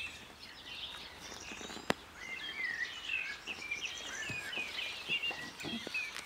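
Small birds chirping and twittering in many short, quick notes, starting about two seconds in, with a single sharp click just before.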